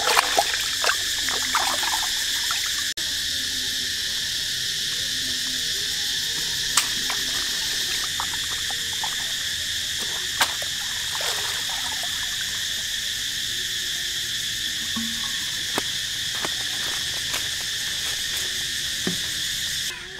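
Steady chorus of chirring insects, with small water splashes and a few sharp clicks as a plucked chicken is washed by hand at the water's edge. The chorus cuts off suddenly just before the end.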